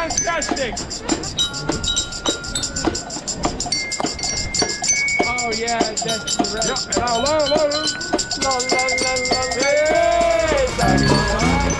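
Upbeat music with a quick, even beat and a bright melody that moves from note to note; a deep bass beat comes in near the end.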